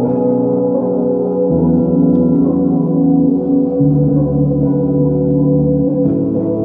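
Solo electric bass, a Zon Hyperbass, played through effects: layered, sustained ringing notes over a low drone. The low note steps to a new pitch about 1.5 s in and again about 4 s in, and drops away about 6 s in.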